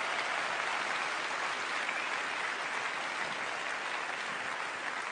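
A large audience applauding, a dense steady clapping that slowly dies down a little.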